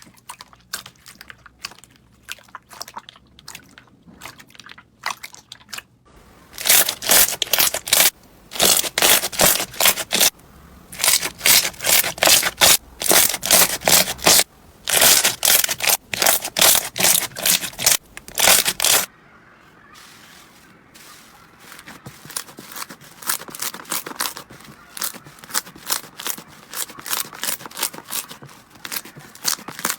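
Slime being pressed and squeezed by hand, giving rapid crackling, crunchy pops. The pops are soft and scattered at first, then come in loud dense bursts through the middle, and fall back to fainter crackling near the end.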